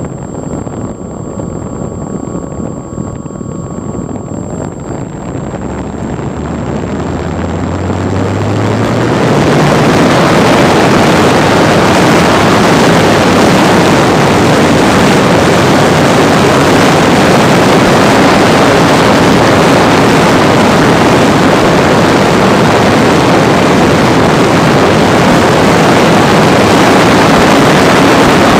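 Brushless electric motor and propeller of a Parkzone T-28D Trojan RC plane, heard from a camera in its cockpit: a low hum rising in pitch from about five seconds in, then from about nine seconds a loud, steady rush of propeller wash and wind on the microphone as the motor runs at high throttle.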